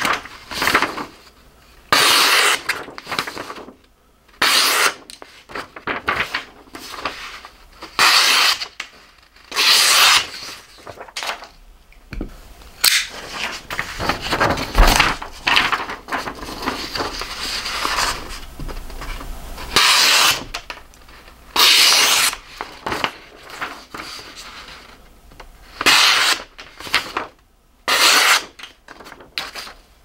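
The thin blades of Smith & Wesson M&P out-the-front knives slicing through sheets of printer paper in a paper sharpness test. Each cut is a short hiss, repeated many times, with paper rustling between the strokes.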